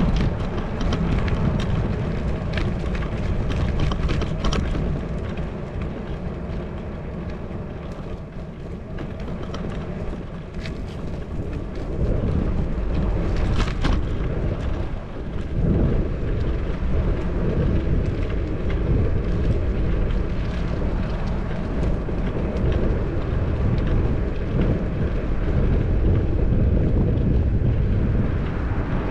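Wind buffeting the microphone of a bicycle-mounted GoPro Hero 10 while riding, a heavy low rumble that eases off for a few seconds in the middle. A few short clicks are scattered through it.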